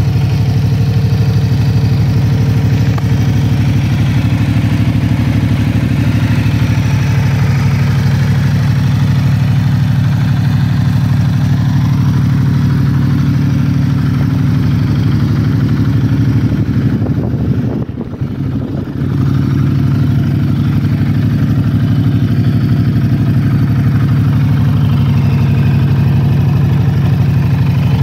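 Ducati Multistrada 1260 Enduro's Testastretta DVT L-twin engine idling steadily, briefly quieter about two-thirds of the way through.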